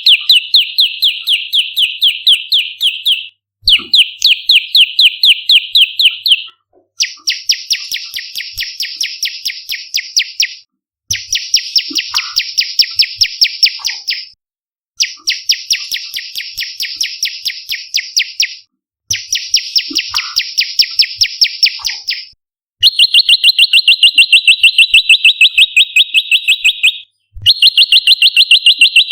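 Prenjak lumut song: loud, rapid runs of sharp repeated chirps, in about eight bouts of three to four seconds each with short breaks between them. The middle bouts are higher and harsher than the first and last ones.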